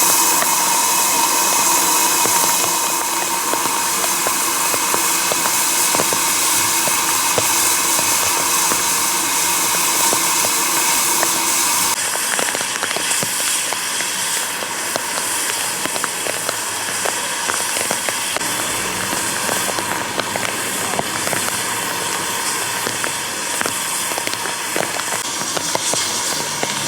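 Loud, steady hiss of steam escaping from a steam locomotive, with many small crackling clicks throughout. The hiss changes about twelve seconds in, turning slightly quieter and more crackly.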